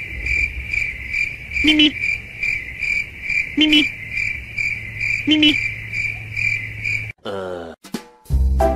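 Cricket-chirping sound effect: a steady high trill pulsing about three times a second, with a short lower call three times, cutting off suddenly about seven seconds in. A falling whistle-like glide follows, then upbeat background music starts near the end.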